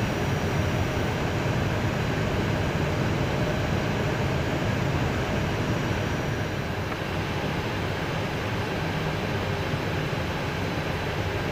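Steady rushing cabin noise in an Airbus A320 cockpit in flight during descent, with a low rumble beneath. A faint high whine fades out about halfway through.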